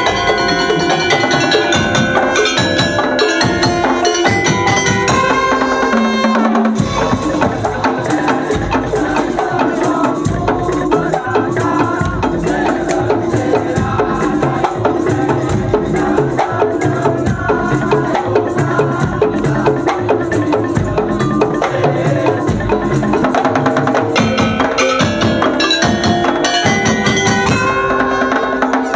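Madurese daul (tongtong) ensemble playing a dense, steady rhythm on bamboo slit drums and drums, with tuned percussion carrying the melody. About 7 s in the high melodic parts drop back, leaving mostly drums, and they come back in about 24 s in.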